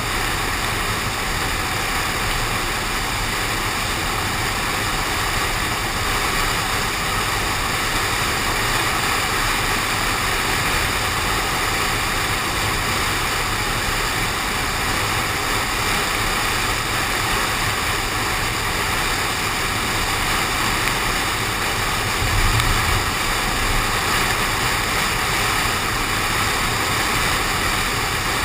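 Steady rushing noise of a car driving in the rain: tyres, wind and rain on the body, picked up by a window-mounted GoPro, with a brief low rumble about 22 seconds in.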